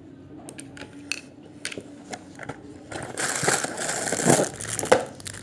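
Beyblade packaging being handled and opened: a string of sharp plastic clicks and crackles, then about two seconds of loud crinkling and rustling.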